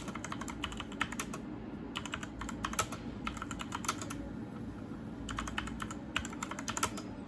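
Typing on a Cosmic Byte CBGK18 Firefly mechanical keyboard with Otemu red switches: an uneven run of keystroke clacks, several a second.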